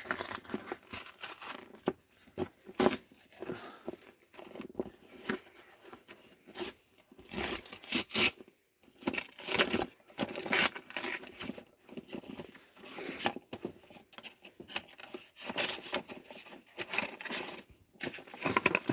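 Product packaging being cut and torn open with a plastic letter opener: an irregular run of scraping, crackling and tearing.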